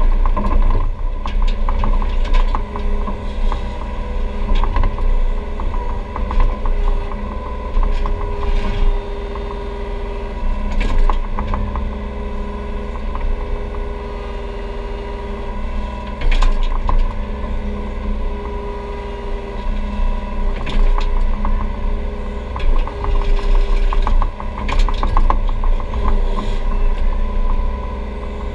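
Takeuchi TB235 mini excavator heard from inside its cab: the diesel engine runs steadily while the hydraulics work the boom and bucket, with a tone that comes and goes in spells as the levers are moved. Occasional clunks and knocks from the machine.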